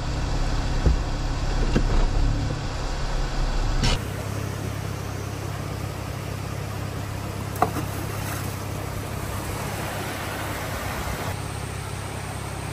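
Jeep engine running steadily at low revs, with a sharp click about four seconds in and another a few seconds later.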